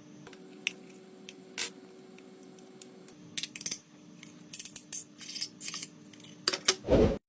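Small clicks and scrapes of tools or parts being handled, over a steady low hum, growing busier in the second half with a louder clatter near the end before the sound cuts off suddenly.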